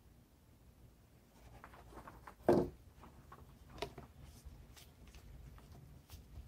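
Plastic bottles being handled: light clicks and taps, one louder knock about two and a half seconds in, then small clicks as a plastic screw cap is twisted onto a plastic jug.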